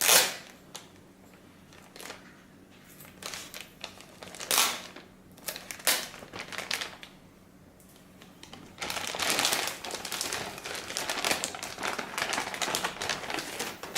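Packaging crinkling and rustling as it is handled and pulled off a small part by hand. There are a few short crinkles in the first seconds, then steadier crinkling over the last five seconds.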